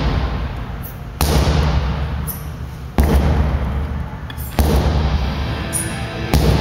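Sledgehammer striking a large rubber tractor tire: four heavy thuds, roughly one every second and a half to two seconds, each fading away before the next.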